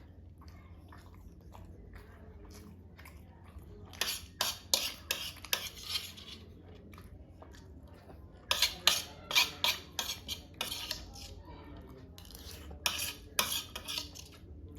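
Eating sounds from a masala dosa meal: crisp crackling and clatter against the plate, in three short flurries of sharp clicks.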